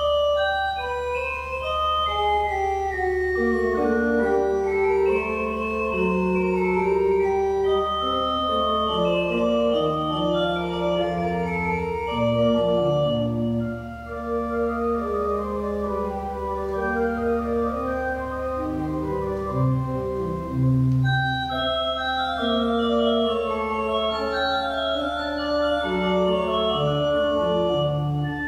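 Pipe organ playing a slow piece of held chords that change every second or so, briefly softer about halfway through.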